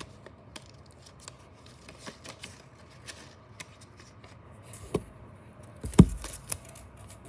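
A sheet of folding paper handled by hand, flipped over and creased: scattered crinkles and small taps, with a louder thump about six seconds in.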